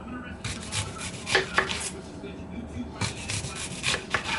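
Knife chopping food on a cutting board, in three short runs of quick strokes.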